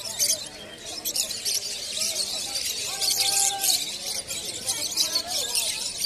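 Many caged lovebirds chattering and screeching together in a continuous shrill, high-pitched din, with people's voices underneath.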